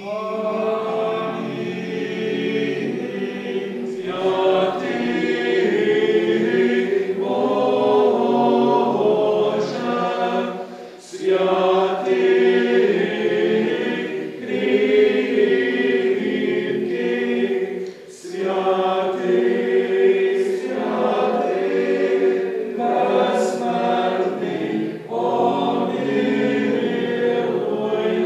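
A choir singing an unaccompanied Ukrainian Catholic liturgical chant, in long sustained phrases with brief breaks between them.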